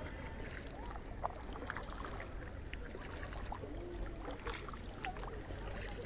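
Kayak paddles dipping and dripping on lake water, small irregular splashes and drips, over a steady low wind rumble.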